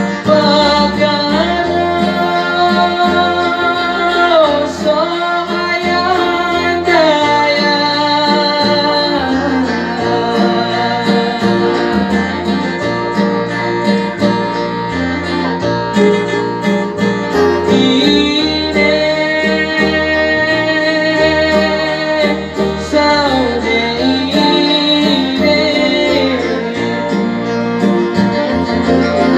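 A man singing a Poso karambangan song into a microphone in long, held, wavering notes, over an electronic arranger keyboard (orgen) accompaniment with a strummed, guitar-like sound.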